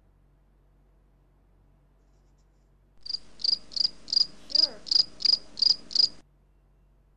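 Cricket chirping sound effect edited in over near silence: nine evenly spaced high chirps, about three a second, that start about three seconds in and cut off abruptly three seconds later. It is the stock gag for an awkward silence.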